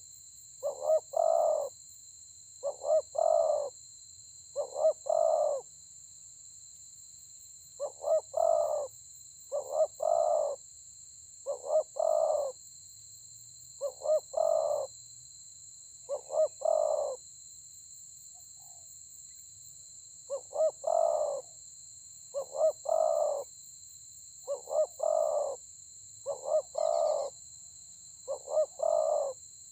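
Spotted dove cooing: its short multi-note coo phrase repeated about every two seconds, with two longer pauses along the way. A steady faint high-pitched whine runs underneath.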